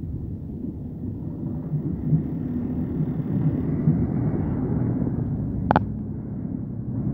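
Train running along the track, heard from inside the carriage: a steady low rumble of wheels on rails that slowly grows louder. One brief sharp click cuts through about three-quarters of the way in.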